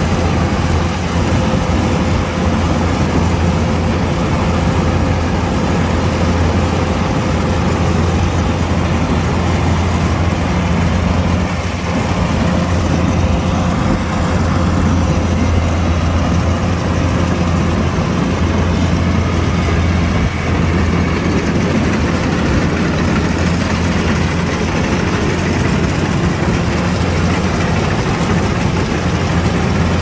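Kubota DC-105X combine harvester running steadily while harvesting rice: a continuous, loud, low engine hum with no change in pace.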